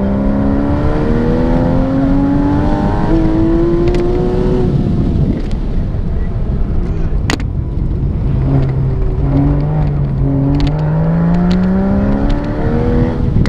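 Porsche 911's flat-six engine heard from inside the cabin during an autocross run: the revs climb under acceleration for about five seconds, drop away as the driver lifts, then climb again through the second half. Steady tyre and road rumble runs underneath, with a single sharp click midway.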